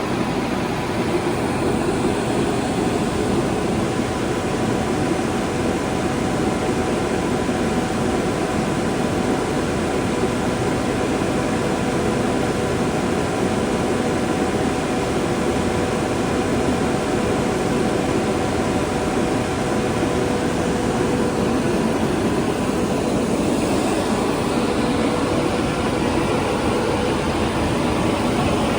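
Polyglass LV1500 vertical glass washing machine running steadily: a constant mechanical rush with a steady whine over it.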